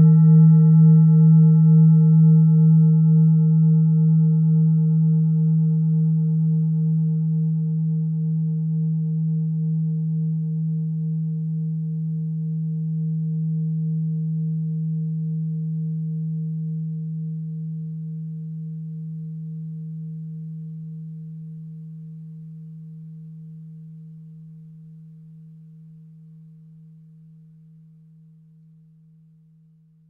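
Tibetan singing bowl ringing out: a low hum with a gentle wavering beat, its higher overtones dying away first, the whole tone slowly fading to nothing near the end.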